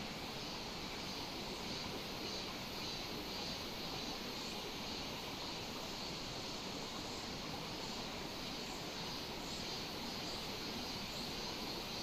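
Steady wash of mountain stream water over rocks, with a steady high-pitched drone above it and a few faint short chirps.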